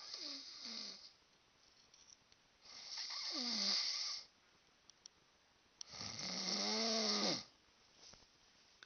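A man snoring loudly in his sleep: three long snores about three seconds apart, the first two gliding down in pitch, the last and longest rising then falling.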